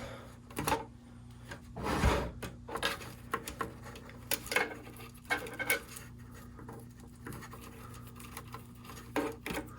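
Power supply cables being handled and routed through a metal NAS chassis: irregular rubbing and scraping with light knocks, over a faint steady low hum.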